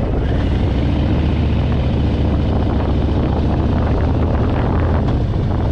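Harley-Davidson Fat Boy's V-twin engine running steadily under way, a low even rumble.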